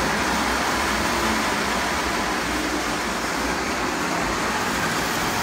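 Lionel O-scale model train running along its track under throttle power, a steady rumble of motor and wheels on the rails.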